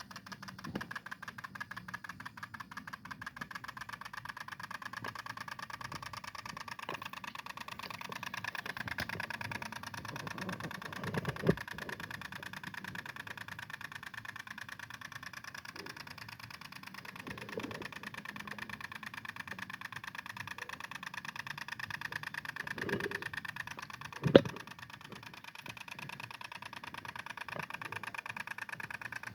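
Small two-stroke engine of a G1000 mini tiller running steadily while tilling soil. There are two sharp knocks, one about a third of the way through and a louder one later on.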